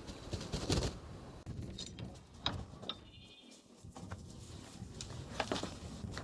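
A few short farm-animal calls.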